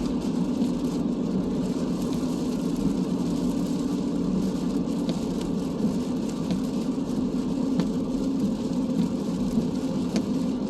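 Steady road and tyre drone heard from inside a car driving on a wet highway, with scattered light ticks.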